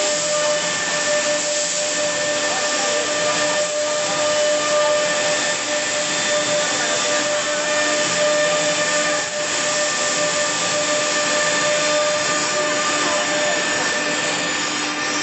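K45-1325 CNC router's spindle running and milling a carved pattern into a wood panel: a steady high whine made of several fixed tones over a constant hiss of cutting.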